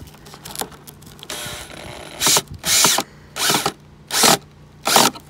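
Cordless drill driving a screw into a wooden board: a short steady run, then about five short loud bursts of the drill motor in quick succession.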